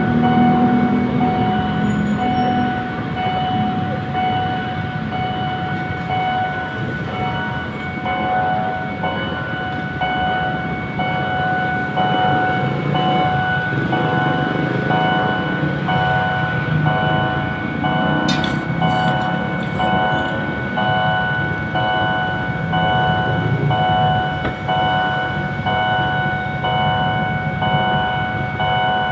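A train running through a road level crossing with a low rumble, while the crossing's warning signal sounds with steady tones. From several seconds in, the signal also pulses about once a second.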